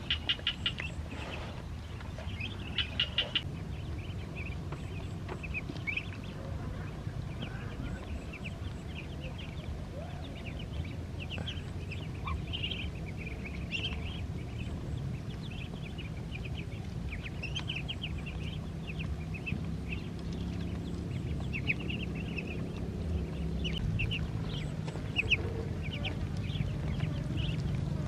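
Muscovy ducklings peeping over and over in short high chirps as the flock feeds, over a steady low hum, with a few sharp clicks in the first few seconds.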